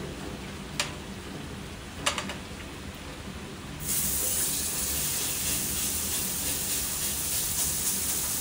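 Raw steak laid into a hot buttered pan on a butane camp stove, sizzling loudly and steadily from about four seconds in. Two short clicks come before it.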